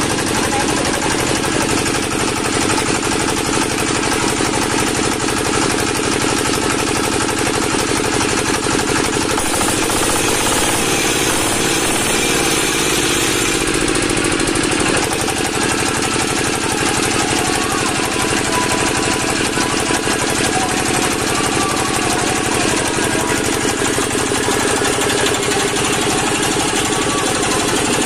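Single-cylinder 8 hp diesel engine of a water pump set, running steadily at idle. Its note shifts briefly about halfway through.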